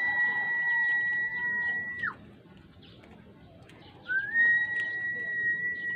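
Two long, steady, high whistled notes, each held about two seconds, sliding up briefly at the start and dropping off at the end; the first ends about two seconds in and the second begins about four seconds in.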